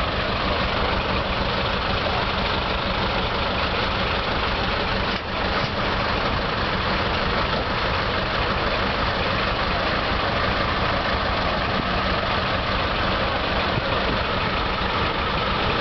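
Truck engine idling steadily, with a short dip in level about five seconds in.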